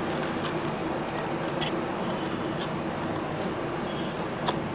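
Scissors snipping through a pastel paper sheet: short sharp clicks at irregular intervals over a steady background hum.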